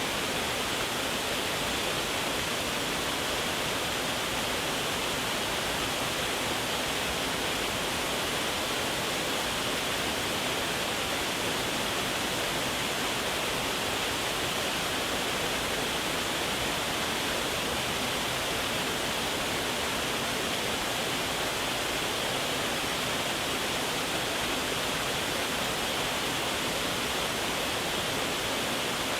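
Waterfall water falling and splashing in a steady, unbroken rush.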